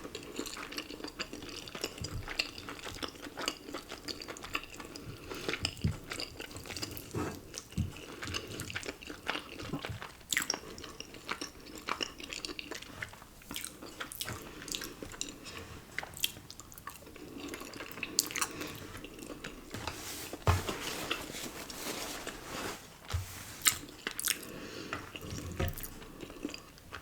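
A person chewing cheesy ramen noodles and rice cakes, with many irregular short mouth clicks and smacks.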